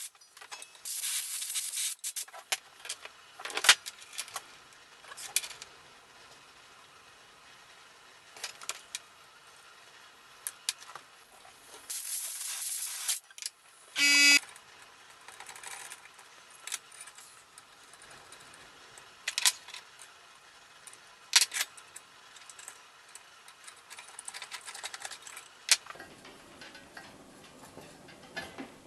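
Compressed-air blow gun hissing in short blasts through the propane valve and tubing of a Mr. Heater Buddy heater, clearing out oil that clogged the lines and kept it from lighting. About 14 seconds in comes one brief, loud honking whistle, and between the blasts there are scattered clicks and knocks of metal parts being handled.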